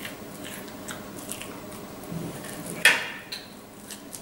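Soft squishing and handling of raw minced-beef filling being pressed by hand into a long red pepper, with one sharp click about three seconds in.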